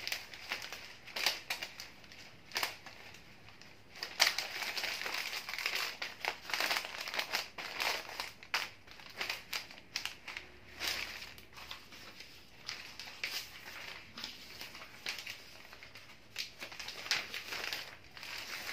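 White bouquet wrapping paper rustling and crinkling as it is gathered, folded and pressed around a bunch of wax roses by hand. It comes in irregular snatches with sharp crackles and is busiest from about four to eight seconds in.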